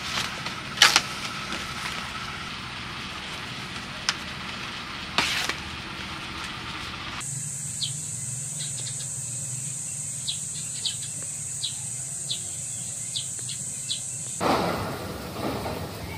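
Banana leaves rustling and crackling as they are handled, with a few sharp crinkles. Then, after a sudden change about seven seconds in, a steady high-pitched insect drone with a string of short bird chirps.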